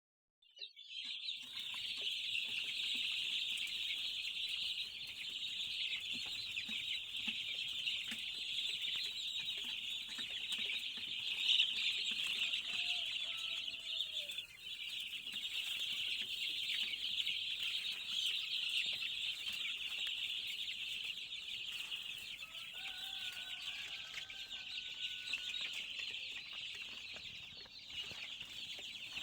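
A large flock of young chickens cheeping all at once in a continuous high-pitched chorus, with a few lower, separate calls standing out about halfway through and again later.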